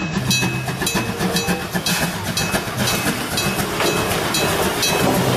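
Steam locomotive dressed as Thomas the Tank Engine running along the track with its coaches: wheels clacking over rail joints under a steady steam hiss, with a repeated high ringing from the lit level crossing.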